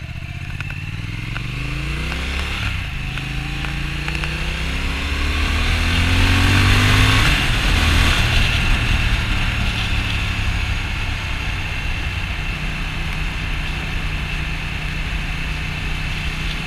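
Triumph Thruxton RS 1200cc parallel-twin engine heard from the saddle, accelerating hard. The revs climb, drop back at an upshift about three seconds in, and climb again to a peak with loud wind rush near eight seconds. After that the engine settles to a steady cruise.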